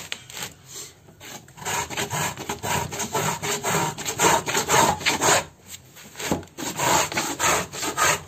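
The pin of a wooden-and-brass marking gauge scratching along a 4 mm board in repeated rasping strokes, about two a second, with a short pause about six seconds in. The strokes score a line deep enough for a one-inch strip to be snapped off.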